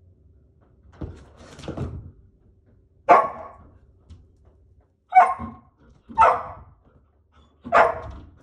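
Poodle barking four sharp barks, one to two seconds apart, eager to be let outside to play.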